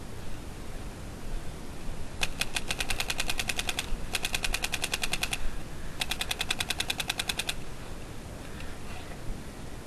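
A Planet Eclipse Geo 2.1 electronic paintball marker firing three rapid strings of shots: the first about two seconds in, the second right after it, the third about six seconds in.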